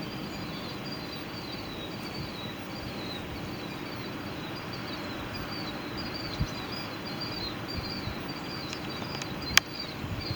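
Outdoor background noise with a high, quickly repeated chirping running throughout. A soft low thump comes partway through and a sharp click near the end.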